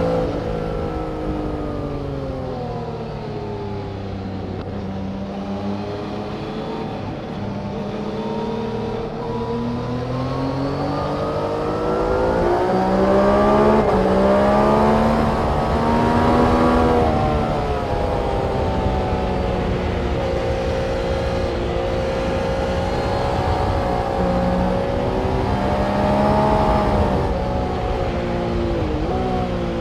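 Engines of several track vehicles going through a corner, their notes overlapping and rising and falling in pitch as they brake, shift gears and accelerate away. The sound is continuous and at its loudest about halfway through.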